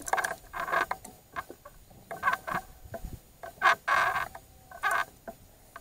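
Fishing reel's drag slipping in short bursts, several times in a few seconds, as a big catfish pulls line off against the angler's steady pressure.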